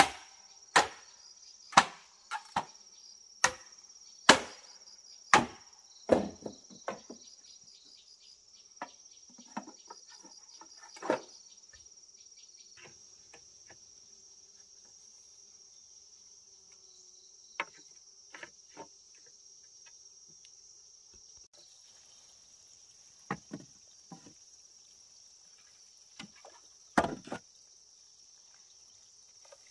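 Chopping blows on wood, about one a second for the first six seconds, then scattered knocks and taps, with a louder pair near the end. Insects drone steadily in a high pitch underneath.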